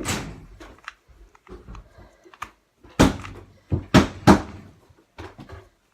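A 2x2 Rubik's cube being turned and handled as it is scrambled: scattered plastic clicks with a loud knock at the start and a cluster of loud clacks about three to four seconds in.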